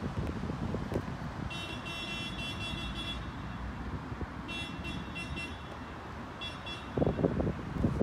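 Wind buffeting the microphone, with three bursts of high-pitched warbling tones, the first and longest about a second and a half in, and a stronger gust near the end.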